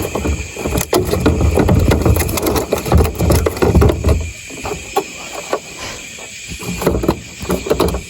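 Irregular knocks and thumps of movement and handling aboard a small boat, busiest in the first four seconds and then thinning to scattered clicks, over a steady faint hum.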